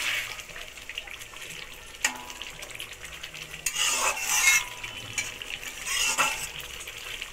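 A metal spatula stirring and scraping fish curry in a metal kadai over a steady sizzle of the simmering gravy. Louder scrapes come about halfway through and again near the end.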